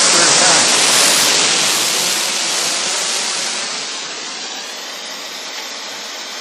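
Electric blower fan on a wood gasifier, running steadily and blasting a jet of smoky gas out of its outlet: a loud, even rush of air that eases somewhat about three seconds in.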